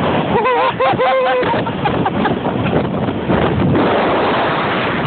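Wind rushing over a phone's microphone as a sledge slides fast down a snowy slope. A rider gives a brief high-pitched squeal in two or three short bursts about half a second in.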